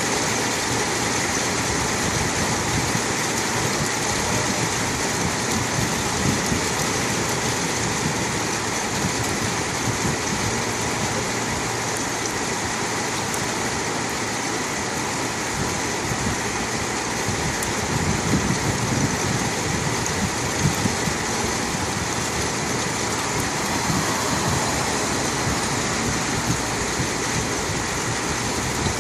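Heavy rain falling, a steady hiss with brief louder patches of pattering.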